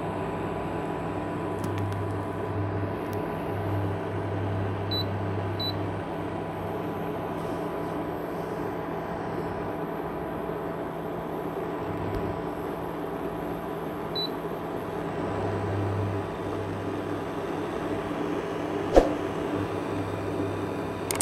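Ailipu ALP-12 induction cooktop running at high power with a pot on it: a steady whir and electrical hum, with a deeper hum that cuts in and out every few seconds. A single sharp click near the end.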